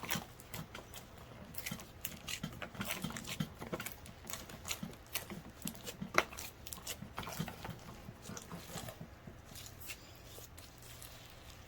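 Clear, sticky slime being kneaded and stretched by hand, giving irregular wet clicks and pops, with a steady low hum underneath.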